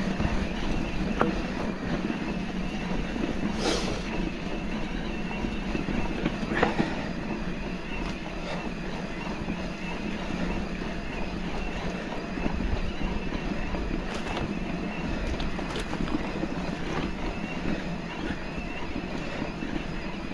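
Mountain bike being ridden: steady rumble of tyres on rough ground and rattling of the bike, with a few sharp clacks, the loudest about 4 and 7 seconds in.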